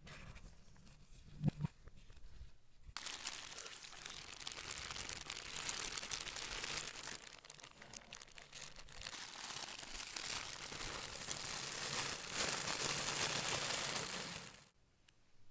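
Packaging crumpled and crinkled by hand in a long, continuous crackling run that stops suddenly near the end, after a soft thump about a second and a half in.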